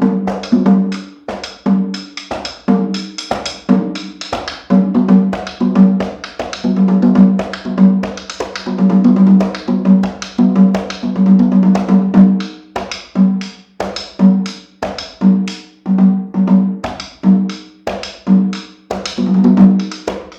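Handmade cowhide-headed tamboras played in a fast, driving rhythm: pitched, ringing drum strokes alternating with sharp, dry clicks.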